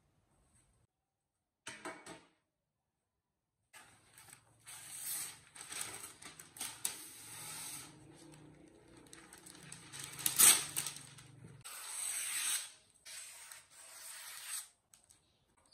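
Parchment baking paper rustling and crinkling as it is unrolled over a metal baking tray and cut with scissors, in a run of irregular scraping bursts. There is one sharp knock about ten and a half seconds in.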